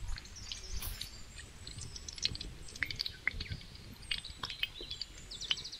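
Birds chirping in short bursts of calls, with a few light clicks and knocks in between.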